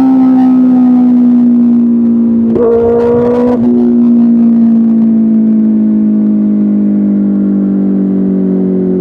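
Kawasaki ZX6R's inline-four engine through an Arrow Pro Race exhaust, running at high revs with its note slowly falling, with a brief change in the note about three seconds in.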